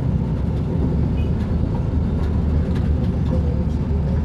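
Mercedes-Benz O-500U city bus's rear-mounted diesel engine running with a steady, low rumble.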